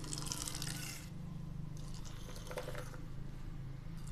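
Sweetened South Indian filter-coffee decoction poured from height out of a steel tumbler into a steel bowl, splashing and frothing, in two pours of about a second each. This pouring back and forth dissolves the sugar and raises froth on the coffee.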